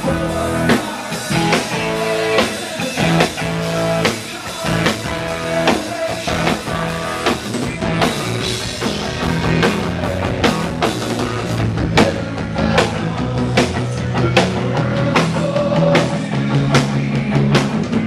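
Rock band playing live, with electric guitar and bass over a drum kit keeping a steady beat.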